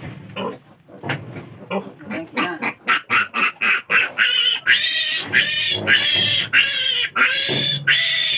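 Two-day-old piglet squealing in distress while held upside down and handled for bloodless castration. Short grunting calls come first, then from about four seconds in a run of loud, high-pitched squeals, each under a second long.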